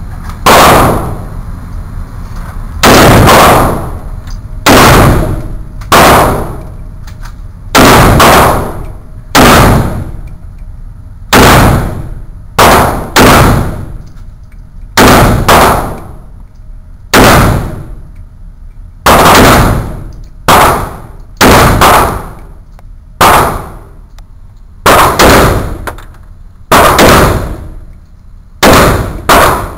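AK-47 rifle in 7.62×39mm fired in single shots, about twenty in all, one every second or two at an uneven pace, with a few close pairs. Each shot is loud enough to overload the recording and rings out with a short echo off the concrete of the indoor range.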